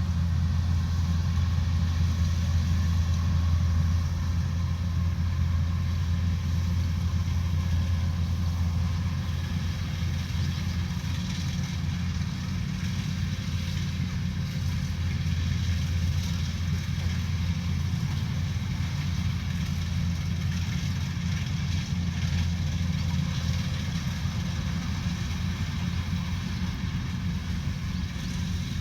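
Combine harvester engine running steadily with a low, even hum.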